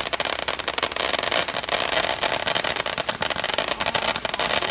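Fireworks crackling: a dense, continuous stream of sharp pops and crackles.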